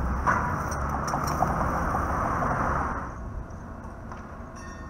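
Street traffic and a 1946 PCC streetcar approaching on its rails: a loud rushing rumble for about three seconds that then drops away, and a faint steady whine starting near the end.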